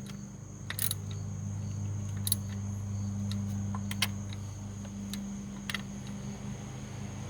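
Scattered light metallic clicks from a 10 mm socket ratchet and bolts as the ignition coil hold-down bolts are snugged, a few clicks a second apart, over a steady low hum.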